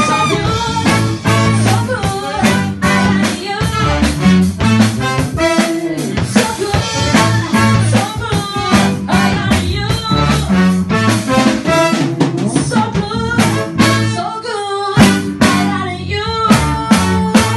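A live band playing: drums, electric bass and keyboard, with a woman singing lead; the horn section of saxophone, trumpets and trombone is heard around the start.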